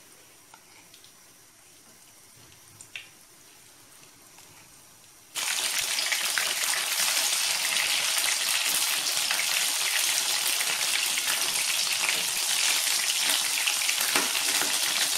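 Marinated, flour-and-egg-coated chicken pieces frying in hot sunflower oil: a loud, steady sizzle that starts suddenly about five seconds in, after a few quiet seconds.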